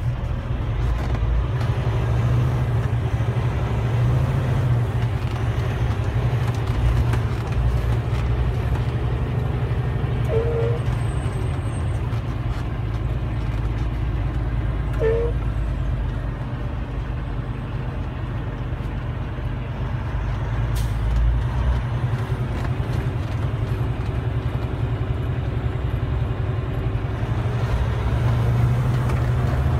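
Steady low engine and road drone heard from inside a truck cab moving in slow traffic, with two brief squeaks about ten and fifteen seconds in.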